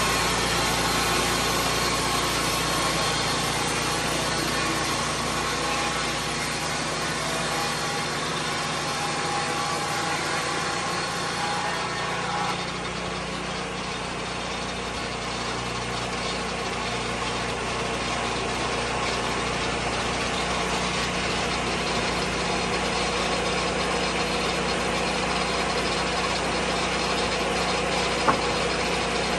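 Engine of a Lucas Mill 10-30 swing-blade sawmill running steadily. Its sound drops slightly about twelve seconds in, and there is one sharp click near the end.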